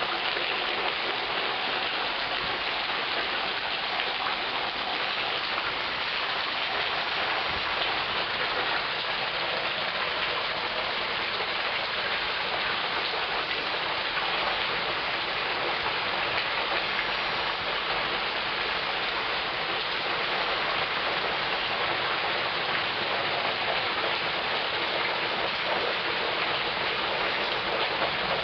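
Heavy rain pouring down steadily, an even hiss with no thunderclap standing out.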